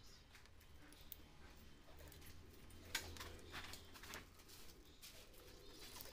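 Faint scratches and a few light clicks from hands working on the surface of an LCD panel's polarizer film, over a low steady hum.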